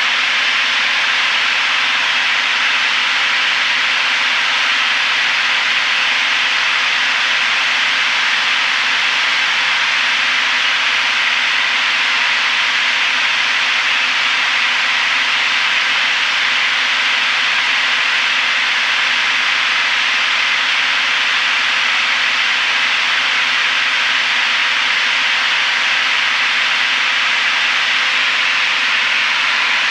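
Cabin noise of a Piper PA32R single-engine light aircraft in flight: the six-cylinder Lycoming engine, propeller and airflow make an even, unchanging drone with faint steady tones in it.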